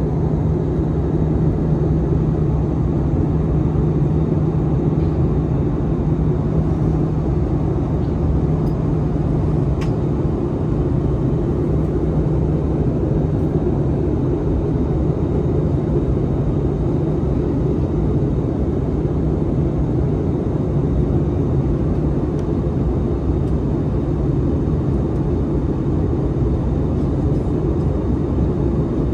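Steady cabin roar of an Airbus A320 in flight on approach, the noise of its CFM56-5B engines and the airflow heard from a window seat. A low hum in the roar eases slightly about halfway through.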